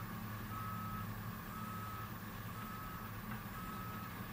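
Vehicle backup alarm beeping steadily, a single-pitched beep about once a second, over the steady low drone of heavy-equipment diesel engines.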